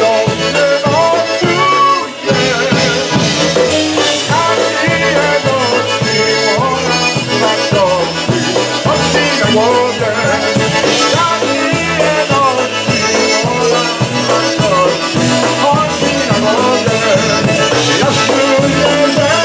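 Live polka band playing a polka: concertina and accordion carry the melody over a steady oom-pah bass beat, with a brief break about two seconds in.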